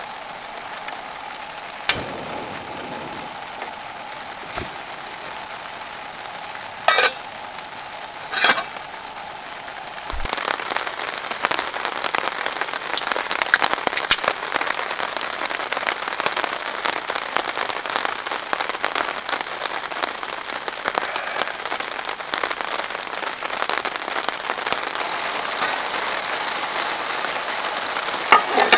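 A gas camp stove burner hisses steadily under a pot, with two sharp clacks about seven and eight seconds in. About ten seconds in, rain starts pattering densely and steadily on the canvas cabin tent, louder than the stove.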